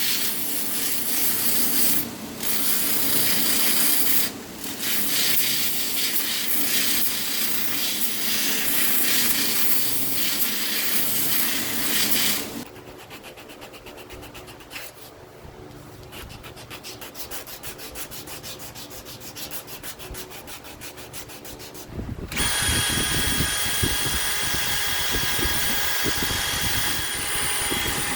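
Power sanding while a knife handle is shaped: loud, rough sanding noise for about twelve seconds, then a quieter stretch with a fine fast rhythm, then a machine running with a steady high whine near the end.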